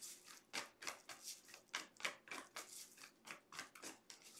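A deck of tarot cards being shuffled overhand: a faint, quick run of soft card slaps and flicks, about three to four a second.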